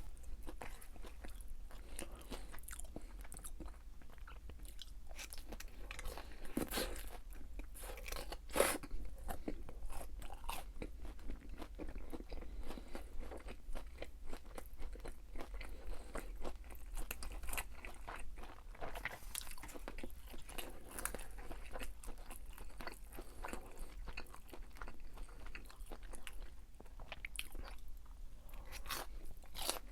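Close-miked eating: a person chewing and biting into crispy fried food, with irregular crunches all through.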